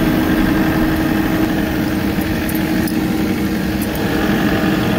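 An engine running steadily at a constant speed, with an unchanging hum.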